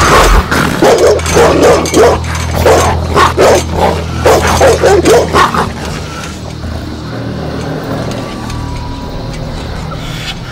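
Dog barking fiercely, many barks in quick succession. About six seconds in the barking stops and a quieter steady hum remains.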